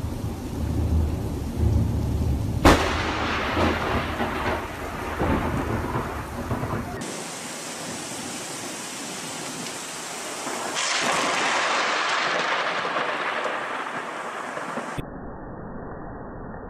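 Thunderstorm: rain hissing with low thunder rumbling, and a sharp crack of thunder nearly three seconds in. The sound then changes abruptly to a steady rain hiss that swells about eleven seconds in, and cuts again near the end to a quieter, muffled rain noise.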